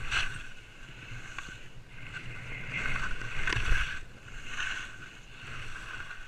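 Salomon skis hissing and scraping through snow, swelling and fading with each turn about once a second, over a low rumble of wind on the microphone.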